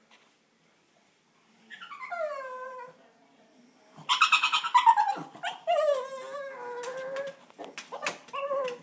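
Pug whining, wanting to get into an old aquarium: a falling whine about two seconds in, then a loud cry and a long drawn-out whine from about four seconds, with a few sharp clicks and a short whine near the end.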